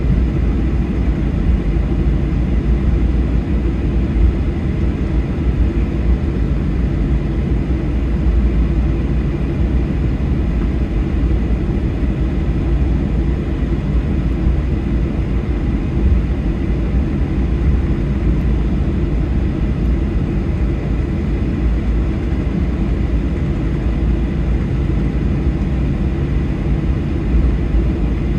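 Boeing 737-800's CFM56-7B turbofan engines running at taxi power as the airliner rolls along the taxiway, heard inside the cabin from a window seat by the wing: a steady low rumble with a faint, thin, steady whine above it.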